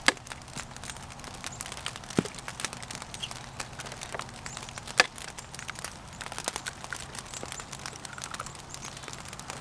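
Two eggs being cracked for crepe batter: a sharp knock at the start and another about five seconds in, with small clicks and rustling between.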